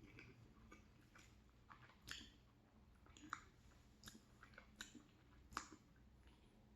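Faint, wet chewing of a mouthful of macaroni and cheese, with soft mouth clicks and smacks about once a second.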